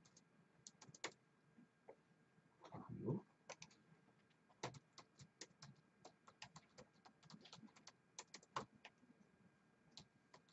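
Soft, irregular typing on a laptop keyboard, quiet key clicks coming in uneven clusters, with one short low murmur about three seconds in.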